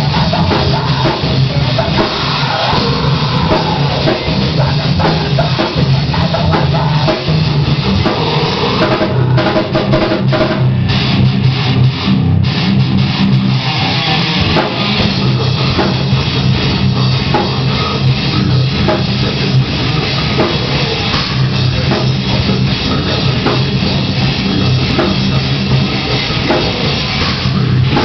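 A live metal band playing loudly: electric guitar over a pounding drum kit, continuous throughout.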